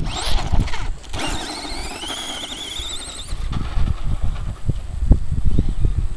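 Brushless electric motor of a modified Tamiya Grasshopper RC buggy whining as it accelerates. The pitch rises and wavers with the throttle for a couple of seconds, then fades. A low rumble with irregular thumps runs underneath.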